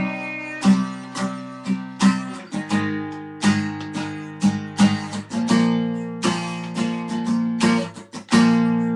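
Acoustic guitar strummed chords, a strum about every half second with the notes ringing between strokes; the chord shifts lower a little over two seconds in. This is an instrumental passage of a solo song with no voice.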